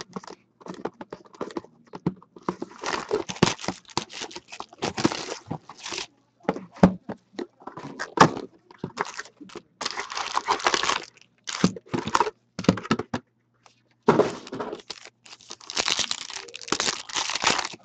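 Hockey card hobby box torn open by hand and foil card packs crinkled and ripped: an irregular run of tearing, crinkling and scraping with short pauses.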